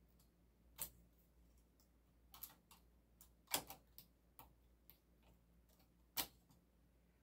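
Scattered faint clicks and taps, about ten spread unevenly over several seconds, from hands working the needles of a flatbed knitting machine.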